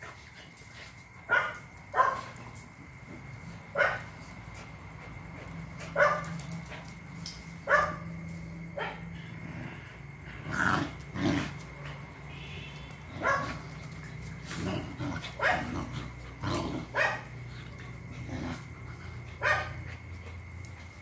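Two dogs, a Phu Quoc ridgeback and a black dog, play-fighting: about a dozen short barks and yips, a second or two apart, with lower growls mixed in.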